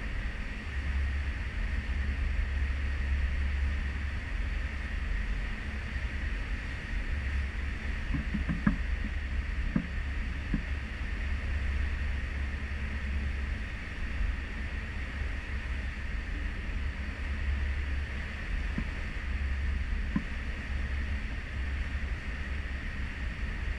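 Steady rushing of a cruise ship's wake churning behind the stern, with wind buffeting the microphone in an uneven low rumble. A few faint knocks come about eight to ten seconds in.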